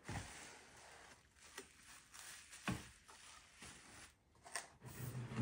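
Faint rustling of a clear plastic bag and cardboard packaging being handled, with a few light taps.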